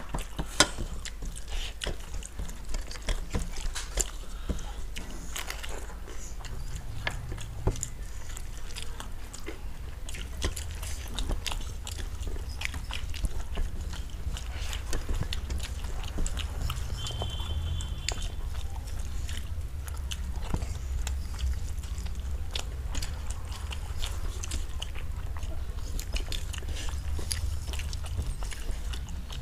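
Two people chewing and eating food by hand up close, with many small mouth clicks scattered throughout over a steady low hum.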